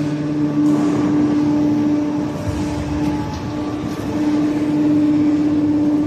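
Hydraulic scrap metal baler running: a steady hum from its electric motor and hydraulic pump, with one strong constant tone over a rushing background, dipping slightly partway through.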